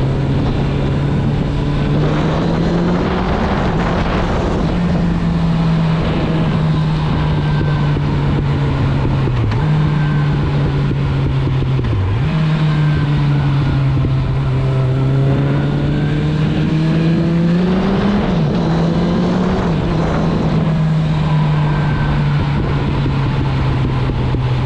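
Suzuki GSF 650 Bandit's inline-four engine running through an Akrapovic exhaust while riding. The engine note holds steady, with a step up in pitch about two seconds in, brief dips near ten and twelve seconds, and a climb and fall in pitch around eighteen seconds.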